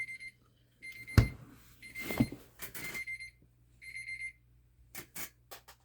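Electronic beeping: a high, steady beep repeated about five times, each roughly half a second long, with two sharp knocks about one and two seconds in and a few light clicks near the end.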